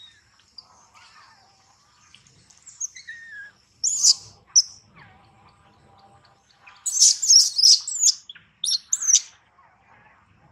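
High-pitched animal chirps and squeals: a short loud group about four seconds in and a dense run from about seven to nine seconds, over faint whistling bird calls.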